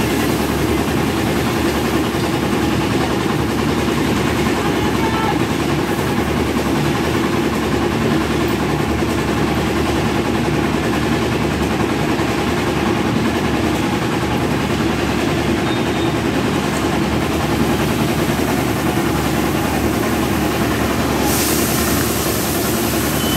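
An engine idling steadily, a loud even drone with no change in speed.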